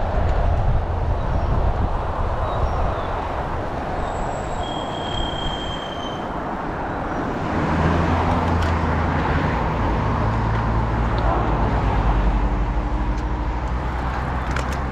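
Wind buffeting the microphone, with tyre and road noise from a moving bicycle. About seven or eight seconds in, a steady low hum joins the rumble.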